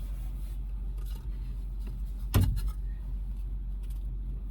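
Small parts and tools being handled while searching for screws: a few light clicks and one sharp knock about two and a half seconds in, over a steady low hum.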